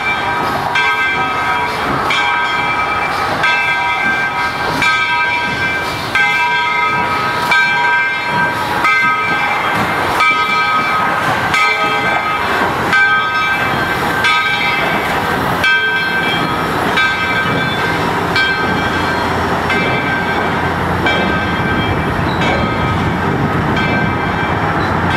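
Steam locomotive bell ringing in even strokes, a little more than once a second, over the hiss and rumble of Soo Line 2719, a 4-6-2 steam locomotive, rolling slowly past. In the second half the bell grows fainter under the louder rolling and steam noise.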